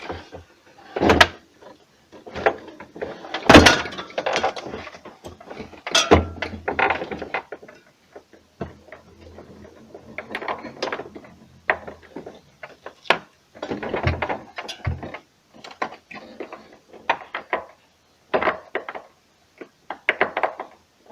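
Refrigerator parts being handled by hand: a plastic cover and wire connectors fitted into place, giving irregular knocks, clicks and short rattles.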